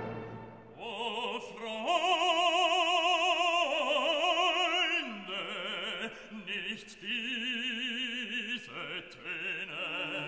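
Background music in an operatic style: a melody with strong vibrato, moving through a series of long held notes.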